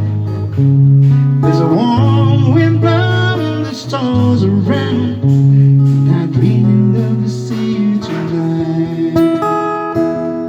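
Music: a guitar-led instrumental passage of a soft-rock ballad, with held bass notes changing about once a second under a moving melody line.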